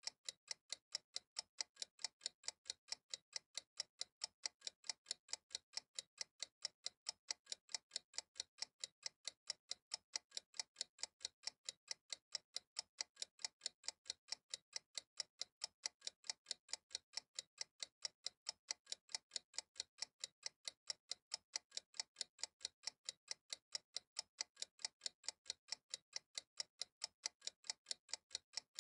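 Steady clock-like ticking from a countdown timer program, rapid evenly spaced ticks that never change in pace.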